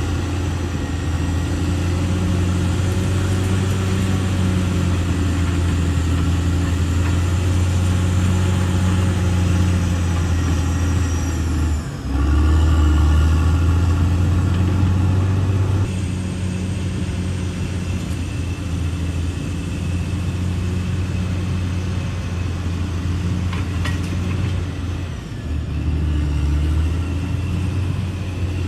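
Caterpillar D6R XL bulldozer's diesel engine running steadily. It dips briefly about twelve seconds in, then runs louder for a few seconds, and its note shifts again a few seconds before the end.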